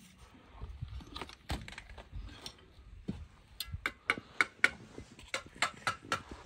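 Scattered knocks, then from about halfway a quick run of sharp, ringing metallic taps, about four a second with a short pause: a mason's trowel tapping bricks and mortar.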